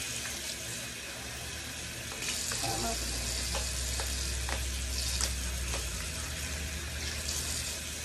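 Bathroom faucet running steadily into the sink while a silicone pop-it fidget toy is rinsed under the stream. The water splashes louder at moments as the toy is turned in it, with a few light clicks.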